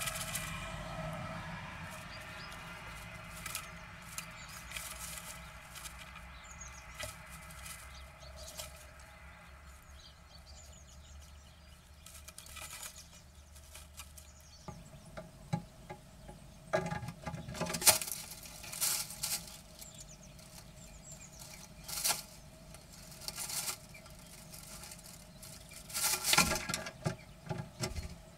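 Blue tit and great tit moving about inside wooden nest boxes: scratching and rustling in the moss and feather nest material, with small knocks and wing flutters against the box walls. The sounds come in scattered short bursts and are busiest in the second half.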